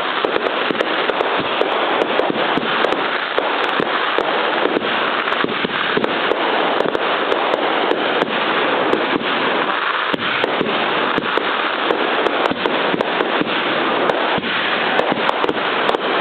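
Consumer fireworks finale with 125 breaks, firing shot after shot in rapid succession as a dense, continuous run of bangs and crackle.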